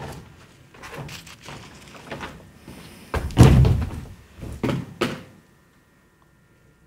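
A person dropping onto a stage floor: some shuffling and light knocks, then one heavy thud about three seconds in, followed by two smaller knocks a second or so later.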